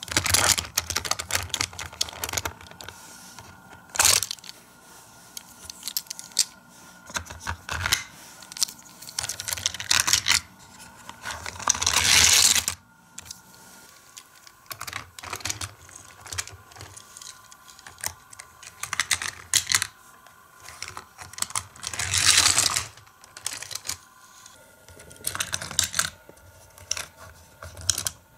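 Hard plastic toy garage playset being handled: plastic parts clicking, knocking and snapping, with a few louder scraping bursts about a second long, and small die-cast toy cars set down on the plastic.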